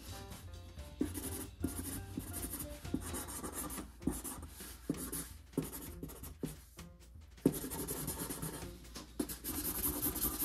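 Sharpie permanent marker scratching across a cardboard box in quick scribbling strokes, coming in short bursts with brief pauses, with one sharp tap about seven and a half seconds in.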